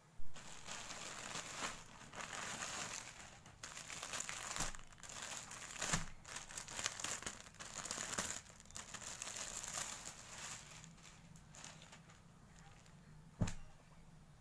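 Plastic packaging crinkling and rustling as hands open a plastic courier mailer and handle the clear plastic sleeve around a folded saree, busiest over the first ten seconds and quieter after. A sharp knock just after the start and another near the end.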